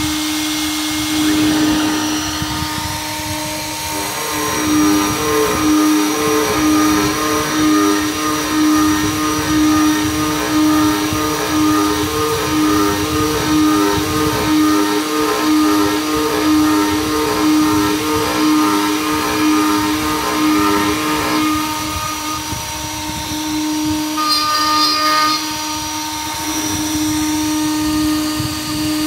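CNC router spindle running with an end mill cutting 6061 aluminum, boring out the centre of the part. It gives a steady whine over a rough hash. From about four seconds in until about two-thirds of the way through, an even, repeating warble rides on it. Short higher-pitched bursts come near the end.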